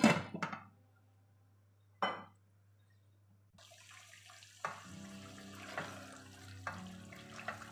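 A pot lid clattering against a stainless steel pot at the start and one sharp clink about two seconds in. From about halfway, chicken pieces sizzle in hot oil while a silicone spatula stirs them, with a few light knocks against the pot.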